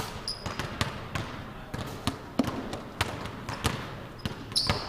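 Basketball bouncing on a gym floor at an irregular pace during post-move footwork drills, with short high sneaker squeaks near the start and near the end.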